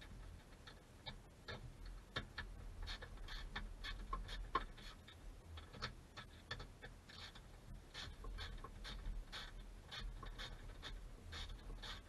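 Irregular small clicks and scratchy rustling of hands working a seatbelt strap and its plastic trim, positioning the webbing, over a low steady rumble.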